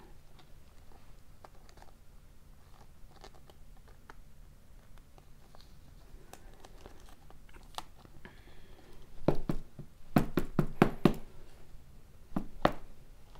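A trading card being slid into a rigid clear plastic top loader and the holder handled: faint rubbing and light ticks of card against plastic, then a quick run of sharp plastic clicks and taps about nine to eleven seconds in, and two more a little later.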